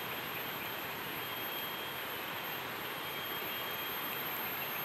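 Steady even hiss of the outdoor surroundings, with a faint high-pitched tone held steady throughout.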